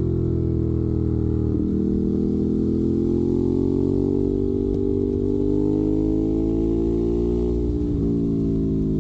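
Ducati Monster 821's 821 cc L-twin engine running through a Termignoni exhaust. The revs climb slowly and then ease back, with brief breaks in the note about a second and a half in and near the end.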